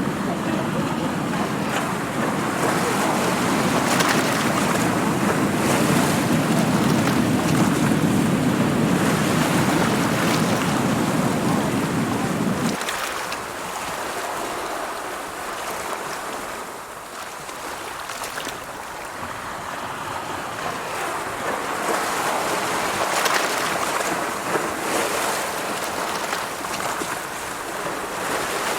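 Ocean surf rushing steadily over a low rumble, which cuts off abruptly about thirteen seconds in; after that the surf swells and ebbs.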